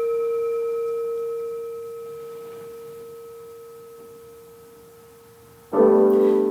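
A struck bell holds one long ringing tone that slowly fades away. Near the end a piano chord comes in loudly.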